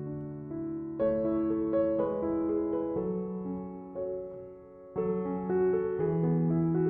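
Background music: soft piano playing slow sustained chords, the notes changing about once a second.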